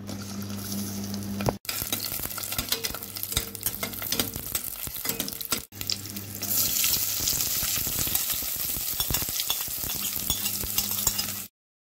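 Chunks of fatty meat frying in hot oil in a stainless steel pot, a dense crackling sizzle. It gets louder from about six and a half seconds in, with chopped onions in the pot, and cuts off suddenly near the end.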